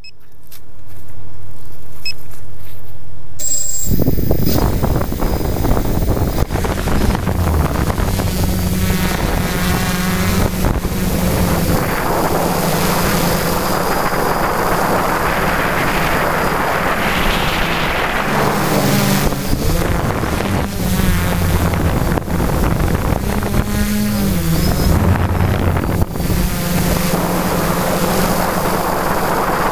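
A quadcopter's motors and propellers running close to its onboard camera: a steady motor tone for the first few seconds, then from about four seconds in a loud wind rush over the buzz as it flies, with the motor pitch dipping and rising now and then as it manoeuvres.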